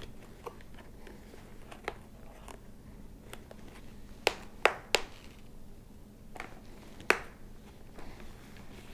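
Press-stud snaps on a Shoei helmet's cheek pad clicking as the pad is worked by hand, with light fabric handling: a few faint clicks, then three sharp snaps in quick succession about four to five seconds in, and one more about seven seconds in.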